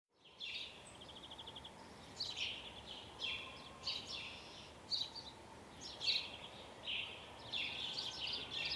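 Small songbirds chirping in short repeated phrases, some with quick rattling trills, over a steady low background noise of outdoor ambience. The sound fades in at the very start.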